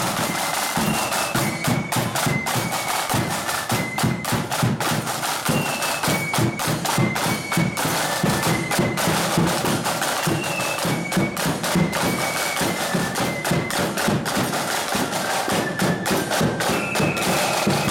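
Marching band playing a march on the move: a high, stepping melody over rattling side drums keeping a steady beat.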